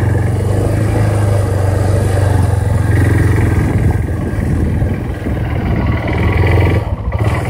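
ATV engine running steadily under way, a constant low drone.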